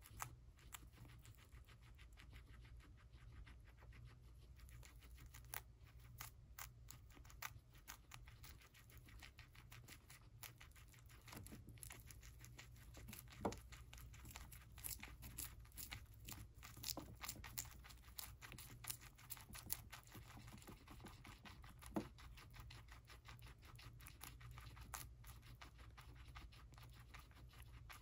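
Guinea pigs chewing celery stalks and leaves: quick, irregular crunches and wet clicks of biting and chewing, with a few sharper crunches partway through, over a steady low hum.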